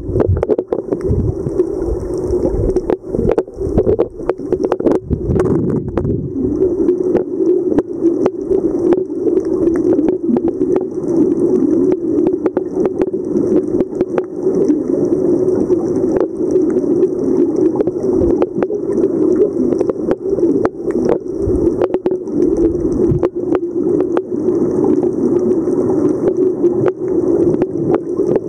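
Muffled underwater sound picked up by a camera while diving: a steady dull rumble with frequent small clicks and crackles, and a high hiss that fades in and out every few seconds.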